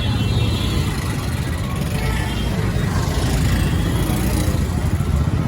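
Street traffic noise with a motor vehicle's engine running close by, a steady low rumble.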